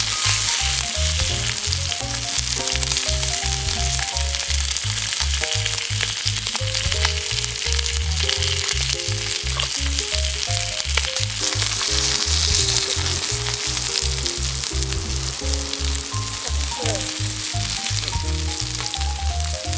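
Sirloin steak slices sizzling and frying in their own fat on a hot rock-salt plate: a steady hiss that swells a little about twelve seconds in. Background music with a steady bass beat plays alongside.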